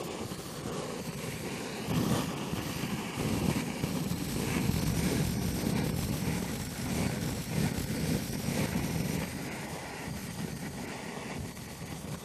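Handheld gas torch burning, its flame held on wood chunks and chips in a smoker's fire box to light them. The steady noise gets louder about two seconds in.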